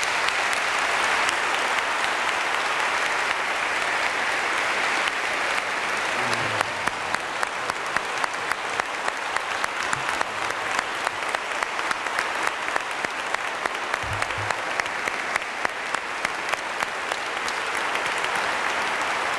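A congregation applauding steadily. From about a third of the way in, one nearby clapper stands out with sharp, evenly spaced claps.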